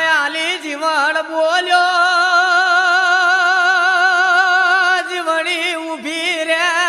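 A male folk singer holding one long, drawn-out sung note with a wide, wavering vibrato, in the style of Gujarati regdi devotional singing, with small melodic turns near the start and again near the end.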